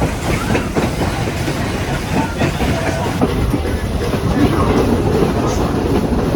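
Steam train carriage rolling along the track, heard on board: a steady rumble with scattered clicks and rattles from the wheels and the coach.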